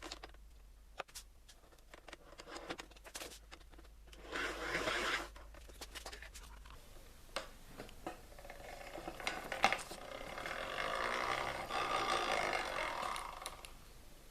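Scattered small clicks and handling knocks, a short scrape, then a hand-cranked grinder being turned, its gears whirring and rising over a few seconds before dying away near the end.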